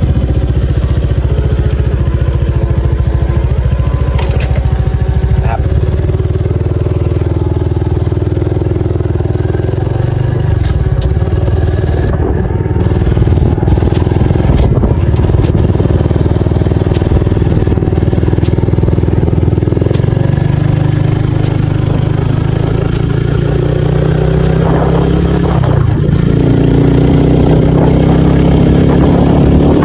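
Motorcycle engine running under way, its pitch rising and falling with speed and climbing near the end as it speeds up.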